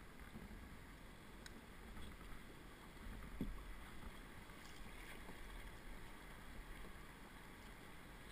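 Open canoe being paddled on a slow river: faint paddle strokes and water moving along the hull, with one short low knock about three and a half seconds in.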